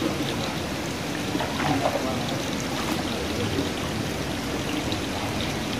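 Steady noise of running water, an even rushing with no clear pattern.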